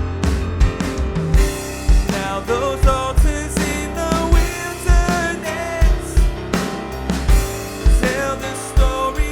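Live worship band playing: a drum kit keeps a steady beat with a kick drum about twice a second under sustained piano chords, and a gliding melody line comes in about two seconds in.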